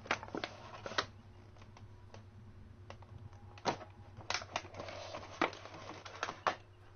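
Clear plastic clamshell packaging being handled and pulled open: irregular sharp clicks and short crinkling rustles of stiff plastic.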